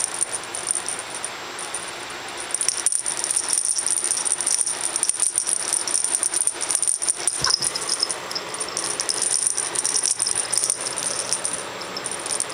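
Dangly flamingo cat toy shaken on its string, its noisemaker making a continuous high-pitched jingling rattle of quick clicks, with a short lull about one and a half seconds in and a single soft thump about halfway.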